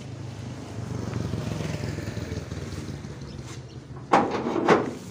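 A motor vehicle's engine running, swelling as a vehicle passes and then easing. Near the end come two loud thumps about half a second apart as packs of Rockwool insulation are shoved about in the pickup's metal bed.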